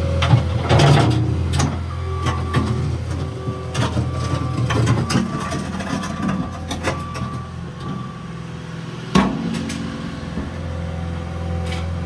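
Caterpillar 236 skid steer's diesel engine running steadily while its toothed bucket scrapes and drags through dirt, with repeated metal clanks and knocks and one sharp bang about nine seconds in.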